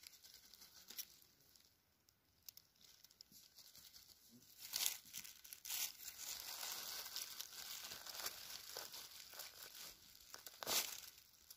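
Rustling and crackling of dry forest-floor litter and twigs, denser in the middle stretch, with a few sharper cracks about a second in, around five seconds in and near the end.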